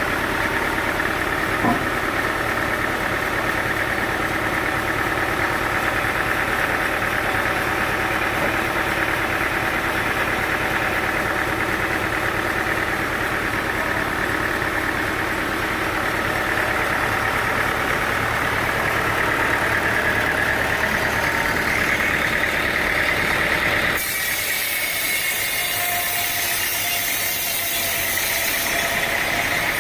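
Sawmill machinery running steadily with an engine-like hum. About 24 seconds in the sound changes abruptly: the low hum drops away and a high hiss takes over.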